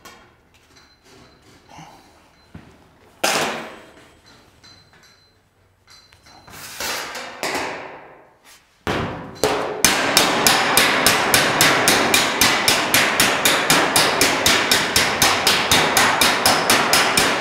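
A few scraping sweeps across a steel car bonnet, then from about ten seconds in a steady run of sharp metal strikes, about four a second, from a slapper worked against a dolly to move weld-distorted panel metal.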